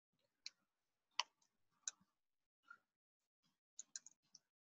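Faint computer keyboard typing: about eight separate key clicks at an uneven pace, a few bunched together near the end.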